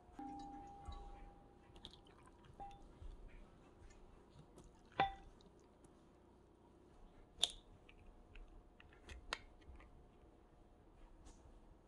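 Quiet kitchen handling sounds: a few sharp, light clinks and taps of dishes and utensils, one ringing briefly.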